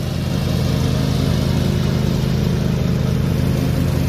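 Cub Cadet XT2 QR106 riding mower's Kawasaki 726 cc V-twin engine running steadily at an even speed.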